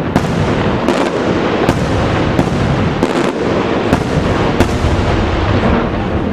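Aerial firework shells bursting in quick succession: sharp bangs roughly every three-quarters of a second over a continuous din of further explosions.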